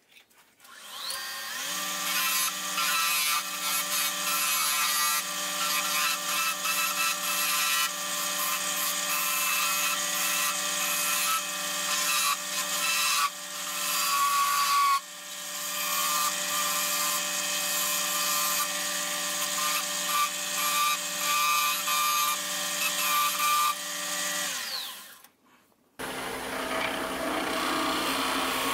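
Wood lathe motor spinning up to a steady whine while a hand-held turning tool cuts a spinning oak spoon blank, a continuous scraping cutting noise over the hum. The lathe winds down near the end, and then cutting resumes with a skew chisel.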